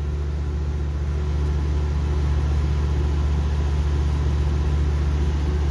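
Steady low droning hum of running machinery, even and unbroken, with no clicks or other events.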